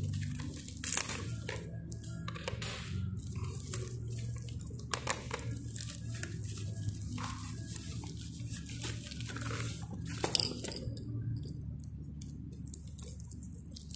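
White plastic bubble mailer being torn open and crinkled by hand: irregular rips and crackles, with a louder burst about ten seconds in, over a steady low hum.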